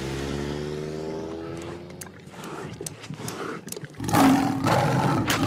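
A steady held pitched tone for about the first two seconds, then, about four seconds in, a giant cartoon rat's loud rough roar.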